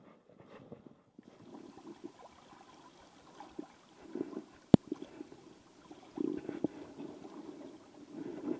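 Shallow river water splashing and sloshing in uneven bursts around a wading angler's legs. A single sharp click a little before five seconds in is the loudest moment.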